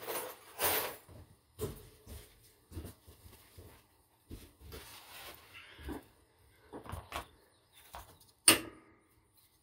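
Scattered light clicks and knocks of hands working parts onto a Toro mower's transmission shaft, with one sharp click about eight and a half seconds in.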